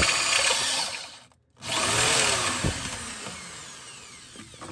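Cordless Ryobi drill with a step drill bit cutting a hole through the steel floor pan of a 1967 VW Type 3. The drill stops briefly about a second and a half in, then runs again and gradually fades.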